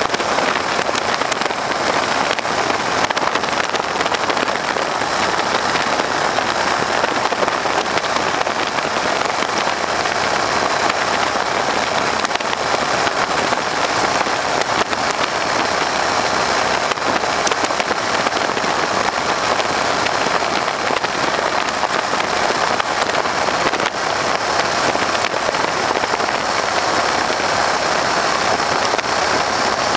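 Steady loud rush of wind and radial-engine drone in the open cockpit of a Stearman biplane in flight, with no change in pitch or level.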